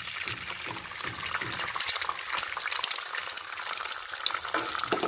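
Beaten egg sizzling and crackling in hot olive oil with fried garlic in a large pan, stirred with a spatula. A dense run of fine crackles with occasional louder pops.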